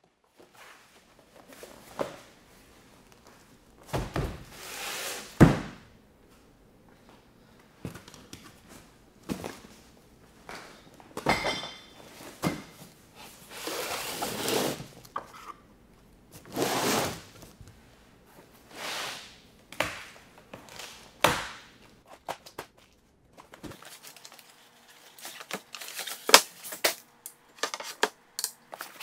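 Heavy cardboard shipping boxes and steel plate being set down and slid on a workbench: a series of thuds and scraping rustles, the loudest thud about five seconds in. A brief metallic ring comes before the middle, and quick clicks and taps come near the end.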